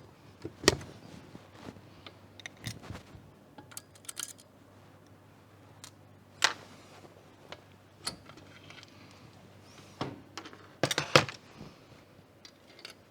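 Metal hand tools and valve parts clinking on a cylinder head as the valves are taken out: a string of separate sharp metal clicks and knocks, the loudest cluster about eleven seconds in.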